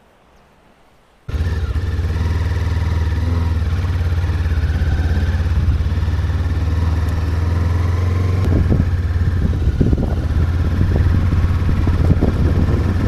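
Adventure motorcycle's engine running steadily as it rides along a rough dirt road, cutting in suddenly about a second in. Knocks and rattles from bumps in the road come through in the second half.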